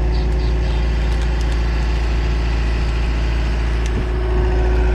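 Heavy machine's engine running steadily, with a faint steady whine through most of it.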